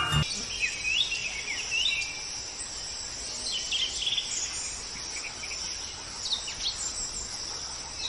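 Birds chirping in short, quick notes every so often, in bunches near the start, around the middle and near the end, over a steady high-pitched insect buzz.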